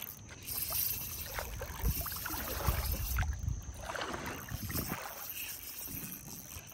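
Shallow water sloshing and splashing with a steady low rumble of wind on the microphone, while an angler plays a fish on a bent rod.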